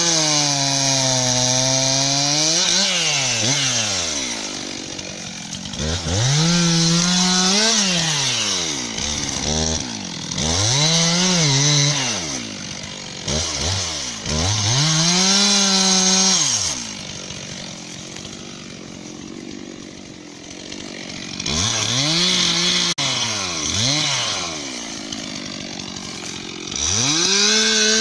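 Stihl MS362 C two-stroke chainsaw cutting into a standing tree trunk during felling. It is revved up and held in the cut about six times, dropping back toward idle between cuts, with a longer idle stretch about two-thirds of the way through.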